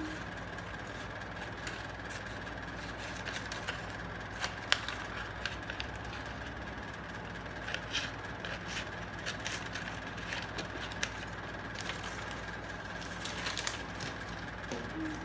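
Scissors snipping and paper being handled as a sheet is trimmed, heard as scattered short clicks and crinkles with one sharper snap about five seconds in, over a steady background hum.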